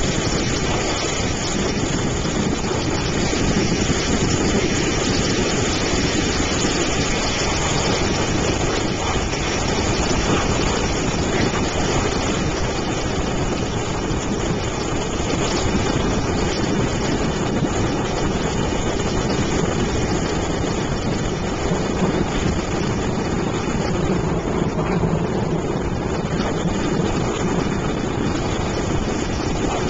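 Airboat engine and propeller running steadily, with wind rushing over the microphone.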